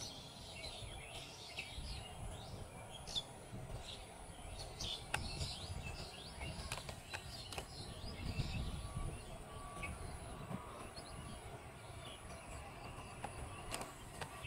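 Birds chirping over a faint, steady low rumble from an electric local train still approaching in the distance.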